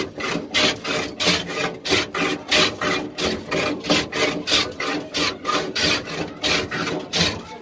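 A block of ice, wrapped in cloth, shaved by hand on a wooden ice-shaver box: pushed quickly back and forth over the blade, a rasping scrape about three strokes a second, which stops just before the end.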